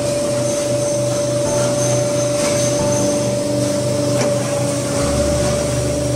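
Hydraulic concrete-block press running: its electric motor and hydraulic pump give a steady whine over a low hum while the mould lifts off freshly pressed hollow blocks. A single click comes about four seconds in, and the low hum changes pitch about five seconds in.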